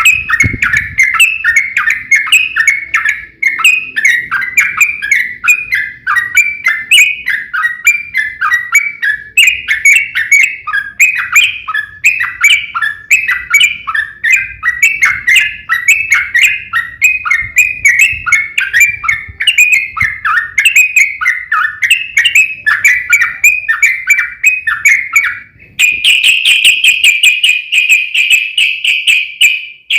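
Yellow-vented bulbul (trucukan) singing a long, unbroken run of rapid chattering notes. Near the end it changes to a steadier, higher rapid trill.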